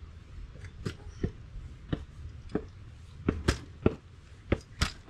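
Footsteps of a person walking at an easy pace, a step roughly every half to two-thirds of a second, over a low steady rumble.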